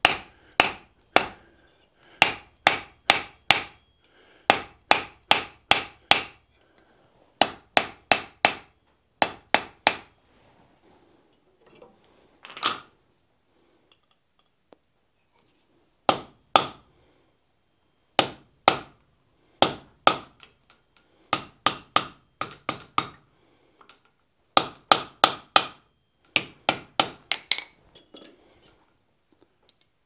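Hand hammer striking red-hot steel bar on an anvil, in quick bursts of three to five blows with a bright ring and short pauses between bursts. Fewer blows come around the middle, and in the second half the hot bar is struck over a hot-cut hardy to cut the piece off.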